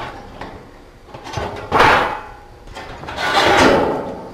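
Sheet-metal ductwork sections being slid together along a seam: two metal slides of about a second each, the first about a second and a half in and the second about three seconds in.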